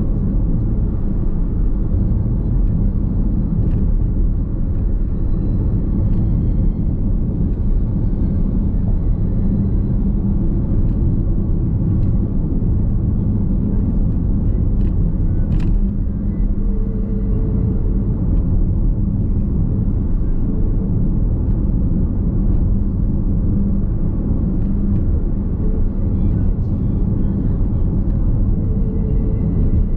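Steady road and tyre rumble inside the cabin of a Nissan X-Trail Hybrid on the move, heard at an even level. A single sharp tick sounds about halfway through.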